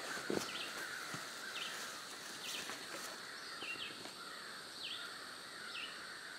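Birds chirping in short, quick notes about once a second, over a steady high insect hum. A single soft thump comes just after the start.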